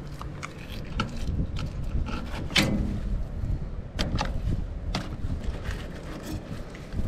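Filleting knife slicing and scraping along the bones of a small snapper on a plastic cutting board: scattered clicks and scrapes, the sharpest about two and a half and four seconds in, over a low rumble of wind on the microphone.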